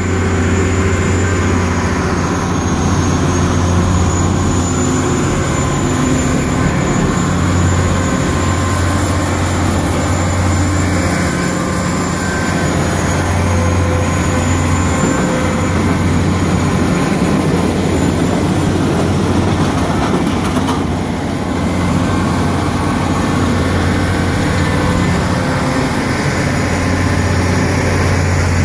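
Heavy diesel machinery of a track renewal train running steadily at work: a loud, constant deep engine hum with a rattle of working gear over it.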